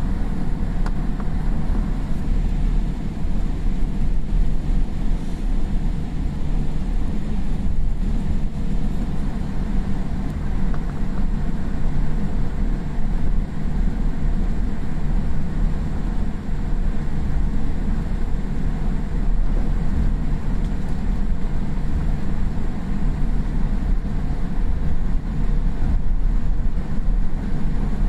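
Steady low rumble inside the cabin of a Boeing 787-8 taxiing on the ground after landing, its Rolls-Royce Trent 1000 engines running at idle, with a constant low hum underneath and no sudden events.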